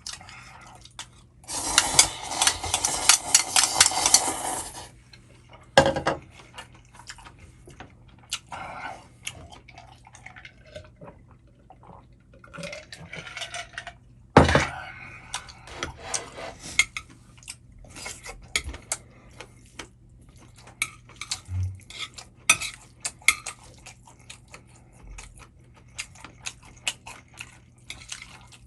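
Eating Chapagetti from a bowl: utensils click and knock against the dish again and again. About two seconds in there is a few-second stretch of louder, hissing noise, and single louder knocks fall about six and fourteen seconds in.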